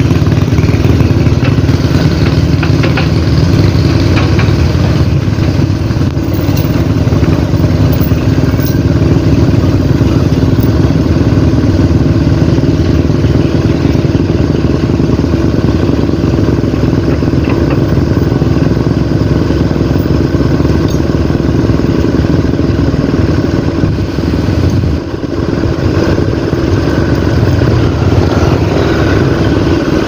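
Tracked excavator's diesel engine running loud and steady while the machine works its boom and bucket, with a brief dip in loudness about 25 seconds in.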